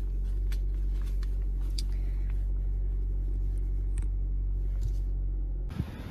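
Steady low hum of a car heard from inside the cabin, with a few faint ticks over it. About six seconds in, the sound cuts abruptly to a rougher rumble.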